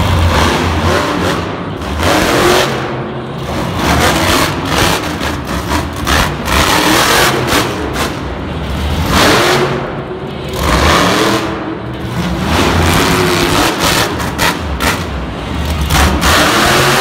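Monster truck engines revving hard, rising and falling in repeated surges as the trucks drive and turn.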